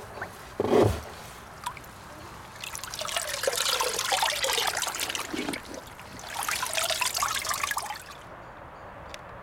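A knock about a second in, then two stretches of water splashing and trickling, the first about three seconds long and the second about a second and a half.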